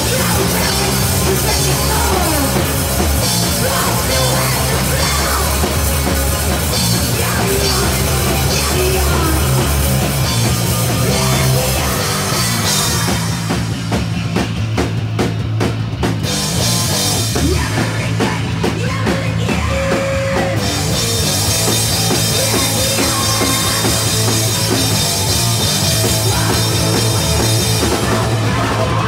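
Live punk band playing loud and fast, with distorted guitar, bass and a pounding drum kit. The high cymbal wash thins out twice for a couple of seconds near the middle.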